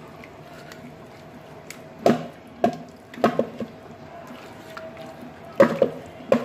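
Fish pieces being mixed by hand with spice paste in an aluminium pot: wet squelching, with several sharp knocks as hand and fish strike the pot, the first about two seconds in and a cluster near the end.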